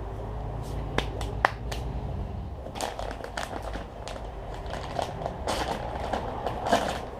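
Rustling and crinkling of a bag or packaging being handled, with a few sharp clicks about a second in, over a steady low hum.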